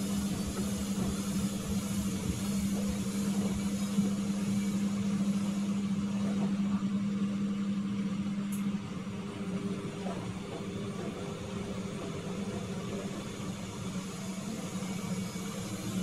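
Siemens WD14H420 washer-dryer running with its top cover off: a steady machine hum that drops in level about nine seconds in.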